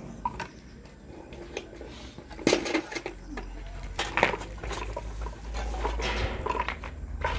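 Block-laying work: scattered metal clinks, scrapes and knocks of a steel trowel and metal bucket as mortar is scooped and concrete blocks are set in place.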